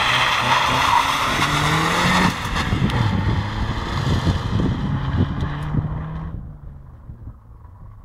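Fiat Punto engine revving hard, its pitch rising and dropping, with loud tyre noise from a slide on the loose surface in the first two seconds. The engine then pulls on alone and fades away as the car drives off.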